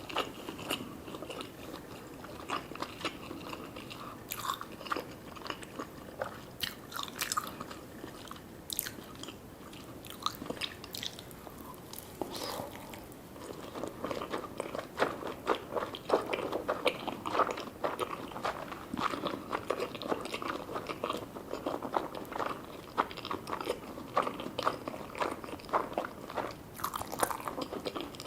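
Close-miked eating sounds: a person biting and chewing sushi, with a dense run of small mouth clicks that grows busier about halfway through.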